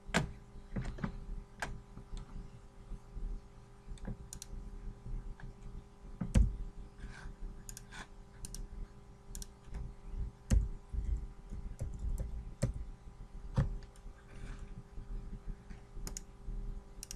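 Irregular clicks of a computer mouse and keyboard keys, roughly one a second, a few with a dull thump, over a faint steady hum.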